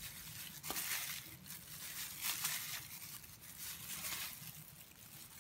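Soft, irregular rustling and crinkling of thin plastic gloves as the hands handle a plate, a few faint rustles a second.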